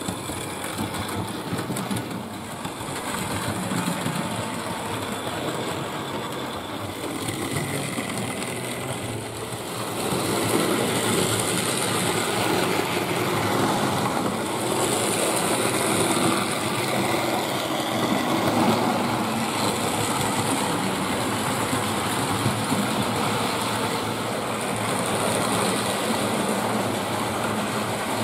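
Hornby Dublo model trains running on 3-rail track: the steady whirr of the locomotive's electric motor and the rattle of wheels on the rails. It gets louder about ten seconds in, when a train runs close by.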